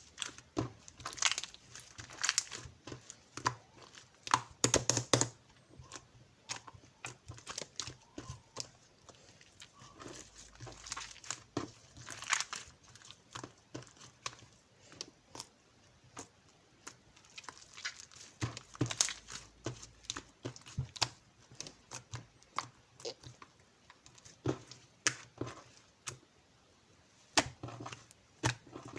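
Crinkling, rustling and tearing of paper or plastic being handled close up, with many small irregular taps and clicks.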